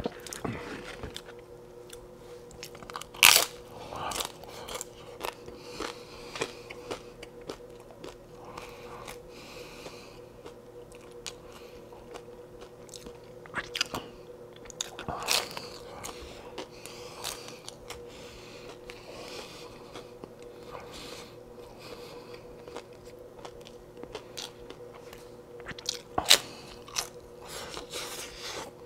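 A person biting into and chewing crunchy hard-shell corn tacos. Three loud crunching bites come about twelve seconds apart, with quieter crunches of chewing in between.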